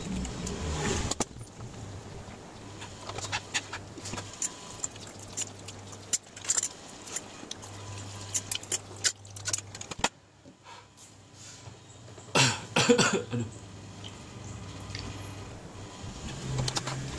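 Someone eating Samyang hot chicken ramen fast: noodles slurped and chewed, a metal fork clicking and scraping on a plastic plate. There is a louder cluster of mouth noises about twelve seconds in, and gulps from a milk carton near the end.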